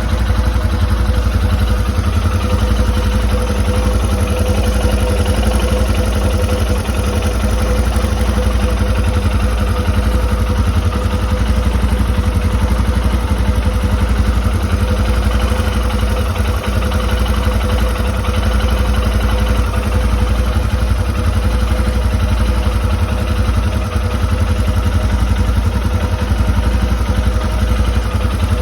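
Royal Enfield Himalayan single-cylinder motorcycle engine idling steadily, with a metallic clicking clatter running through it.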